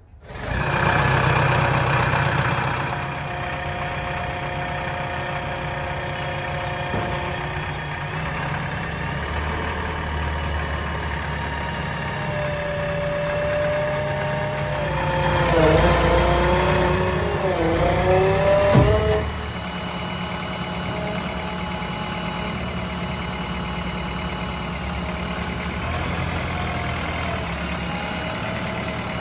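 JCB 3DX backhoe loader's diesel engine starting up and running loudly for a few seconds, then settling into a steady idle. About halfway through, a wavering whine rises and falls over the engine for several seconds as the hydraulics work the backhoe arm, then cuts off and the idle carries on.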